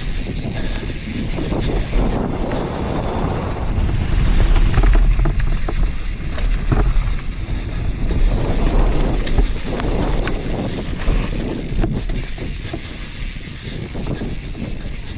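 Mountain bike running fast down a dirt trail: a heavy low rumble of wind buffeting the action camera's microphone, with tyres rolling over packed earth and dry leaves and frequent sharp rattles and knocks as the bike hits bumps.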